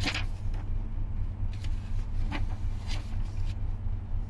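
Steady low hum of a ship's machinery, with short papery rustles as pages of a ring-binder of wiring diagrams are turned and handled.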